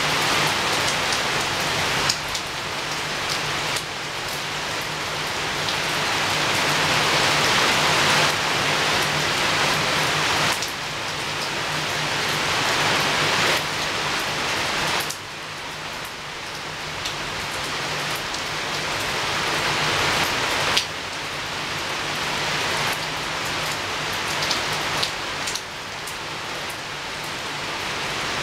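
Rain falling at a window: a steady hiss of rain that slowly swells and drops back abruptly several times, with a faint low hum underneath.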